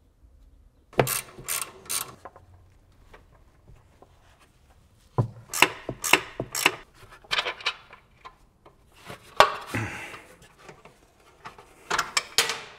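Hand tools working on a car's front suspension: a ratchet wrench clicking in short bursts, with metal parts clinking, as the suspension bolts are done up.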